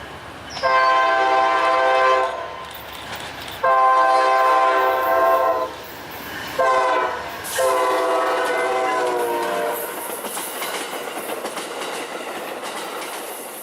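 Amtrak P42DC diesel locomotive horn sounding the grade-crossing signal: long, long, short, long. The last blast drops in pitch as the locomotive passes, and it is followed by the passenger train rolling by with wheel clatter that fades near the end.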